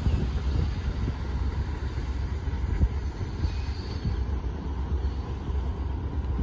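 Freight train of boxcars rolling away around a curve: a steady low rumble.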